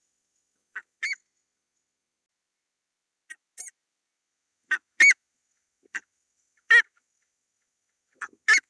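Buff-necked ibises calling: about ten short, loud calls, many in quick pairs, with silence between. The loudest come about five, seven and eight and a half seconds in.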